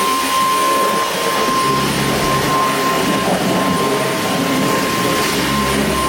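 Vacuum cleaner running steadily: a loud rush of air with a high, even motor whine.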